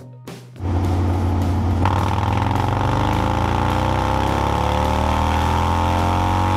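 Harley-Davidson Breakout's V-twin engine running on a dynamometer. It comes in loud and suddenly about half a second in. From about two seconds in it revs in one steady, rising full-throttle dyno pull.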